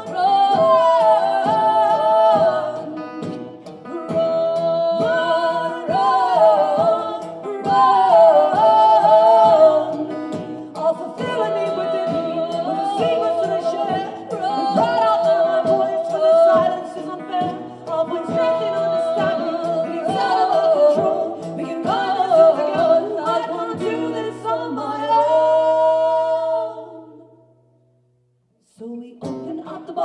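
Two women's voices singing in harmony over strummed acoustic guitars, with long held notes. Near the end a held note fades out, the music stops for about a second, then starts again.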